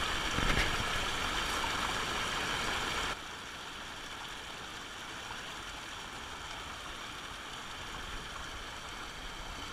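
A small stream running with a steady rushing babble, louder for about the first three seconds and then dropping suddenly to a quieter level.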